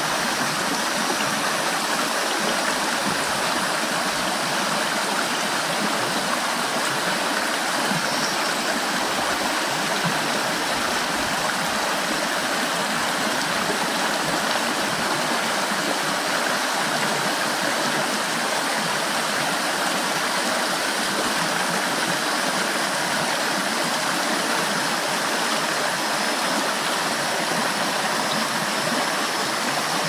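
Shallow, fast-flowing stream rushing and splashing over rocks, a steady sound of running water.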